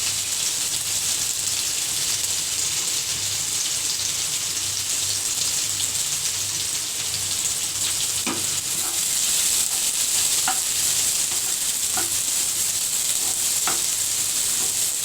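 Chopped onion and ginger frying in hot oil in a pan with mustard seeds, a steady sizzle, with a few light clicks and scrapes from stirring in the second half.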